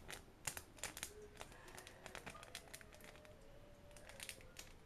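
Faint crinkling and light clicks of screen-protector kit packaging being handled, in scattered short bursts.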